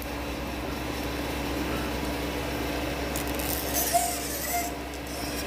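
Steady low machine hum, with a brief high hiss a little after three seconds in and a light click near four seconds.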